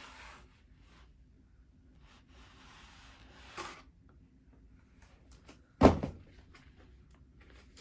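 Cardboard and plastic packaging of a vinyl record being handled: soft rustling and sliding with a few small clicks, and one sharp knock just under six seconds in.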